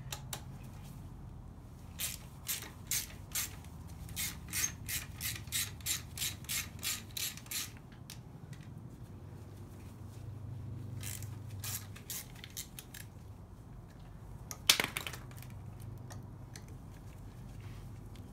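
Hand socket ratchet clicking as bolts are backed out of the water neck (thermostat housing) of a 7.3 IDI diesel, about two to three clicks a second for several seconds, with more clicking later. A single sharp clank comes near the end.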